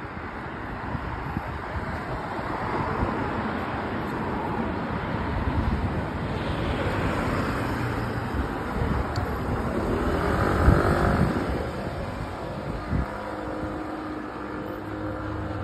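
Street traffic: cars driving past on a city road, with one vehicle passing close and loudest about ten to eleven seconds in before fading.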